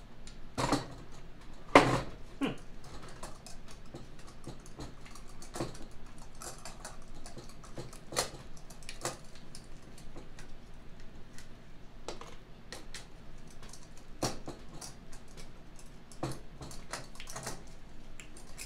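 Irregular metal clicks and clinks of a hand tool working screws out of a Snapper rider's rear-end case, with one much louder clank about two seconds in.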